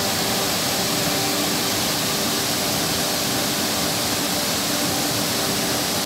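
Waterfall: water cascading down rock into a pool, a steady, even rush.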